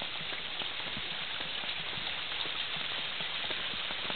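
Rainwater running and pattering: a steady hiss full of fine ticks and drips.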